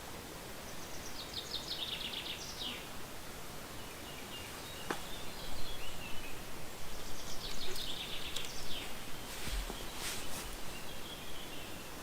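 A small songbird singing outdoors: two quick phrases of rapidly repeated high notes, about six seconds apart, with shorter whistled notes between and after them, over a steady hiss of outdoor ambience. A few faint clicks come in the middle and near the end.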